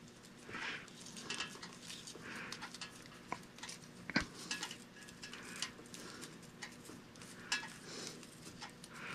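Faint rustling and light clicks of telephone cords being handled and rearranged by hand, with one sharper click about four seconds in.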